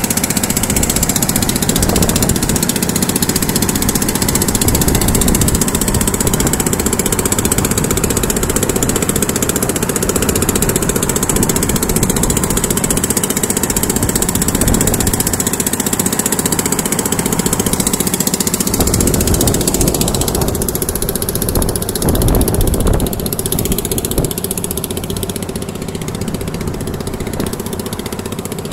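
Motor of a long wooden river boat running steadily while underway, with the rushing noise of the moving boat over it; it eases off a little near the end.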